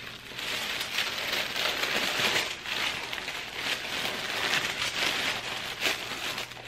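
Tissue paper crinkling and rustling continuously as it is handled and pulled out of a gift box.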